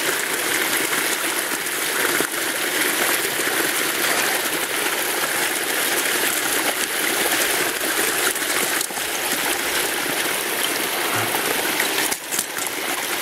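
Stream water running steadily, with a few light knocks.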